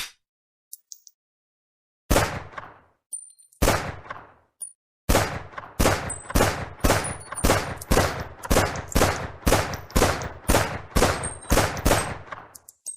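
Glock 17 9mm semi-automatic pistol firing: two single shots a second and a half apart, then after a short pause a steady string of about seventeen shots at roughly two a second, each ringing out briefly, with faint high metallic pings between them.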